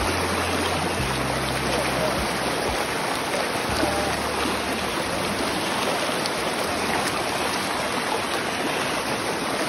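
Shallow rocky river rapids rushing over stones: a steady, loud rush of white water.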